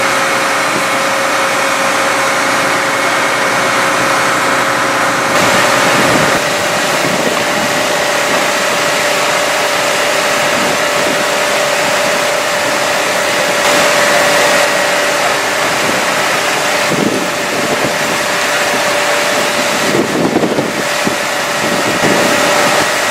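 Fire engine running steadily at the fire scene, a constant engine-and-pump hum over a loud rushing noise of water jets and fire; the sound shifts abruptly a few times.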